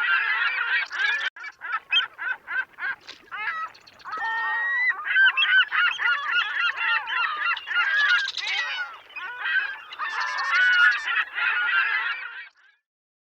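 A flock of waterfowl calling at a lake, with many honking calls overlapping in a continuous clamour that cuts off suddenly near the end.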